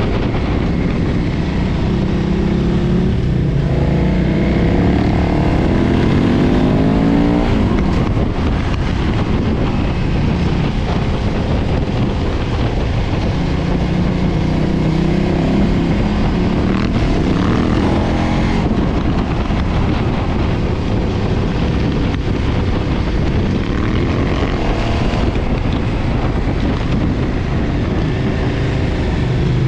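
2013 KTM 990's V-twin engine running through its stock exhaust under way, rising in pitch as it accelerates several times and dropping away at each shift or roll-off, with steady wind noise on the microphone.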